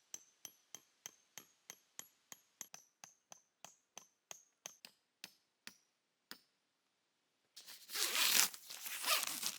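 A metal tent peg being tapped into the ground, about twenty light, even strikes at three or four a second, each with a faint metallic ring, stopping about six seconds in. Near the end, loud rustling and crinkling of tent fabric.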